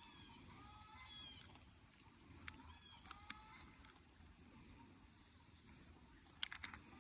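Steady high-pitched insect chorus with short bird chirps, and a few sharp light clicks.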